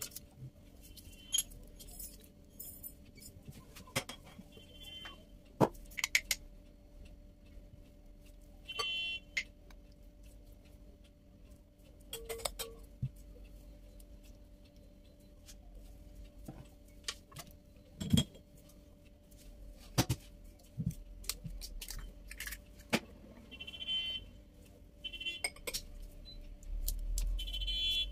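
Kitchen utensils and bowls clinking and knocking: scattered sharp taps, with a few brief ringing clinks among them.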